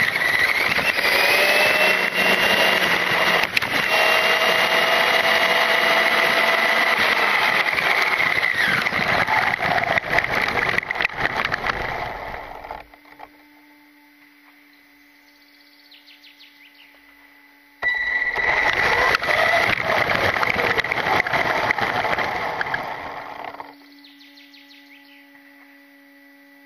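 Onboard sound of an LRP S10 Blast 2 electric brushless RC touring car driving on coarse asphalt: a loud noisy rush of tyres and drivetrain with a high motor whine that rises and falls with speed. It dies away about 12 seconds in as the car slows to a stop, leaving only a faint steady hum, picks up suddenly again about 18 seconds in, and dies away once more about 23 seconds in.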